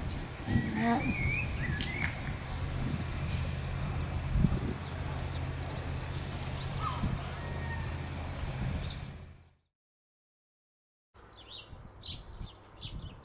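Small birds chirping and singing in quick short notes over a steady low hum. The sound fades out about nine and a half seconds in, and after a short silence more bird chirps follow.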